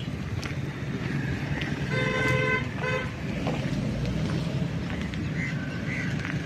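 Vehicle horn sounding: one longer toot about two seconds in and a short one just after, over a steady low traffic rumble.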